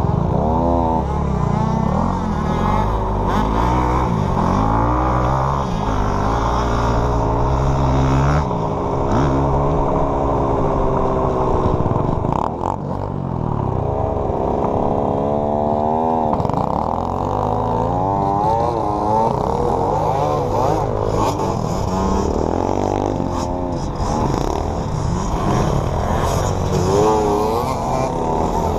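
KTM 65 two-stroke dirt bike engine revving up and down as it is ridden around a motocross track, its pitch repeatedly rising and falling through the gears, with a brief drop in revs about twelve seconds in.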